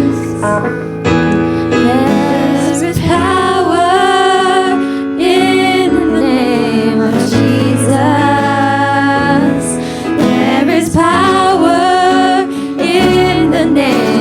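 Music: a song with a singing voice, likely a woman's, over piano or keyboard accompaniment.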